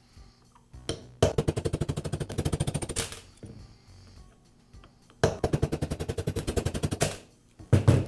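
Two bursts of rapid, evenly spaced metallic clicking, about a dozen clicks a second and each about two seconds long, from hand work on a roofing nailer's trigger and safety parts, then a single knock near the end.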